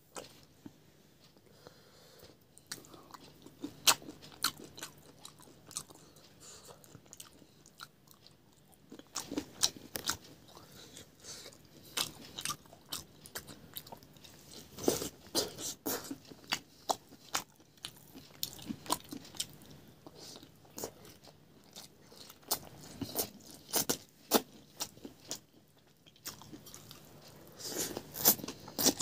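A person eating by hand close to the microphone: irregular crunching bites and chewing, more frequent from about nine seconds in.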